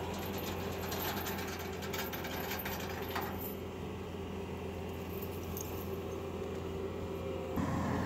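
Bobcat compact track loader's diesel engine running steadily while it handles a large log. A metallic rattling clatter sounds over the first three seconds or so.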